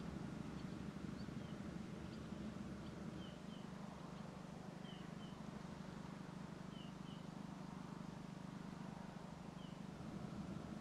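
Quiet open-air evening ambience: a small bird gives short, high chirps, often two in quick succession, every second or two, over a faint steady low hum.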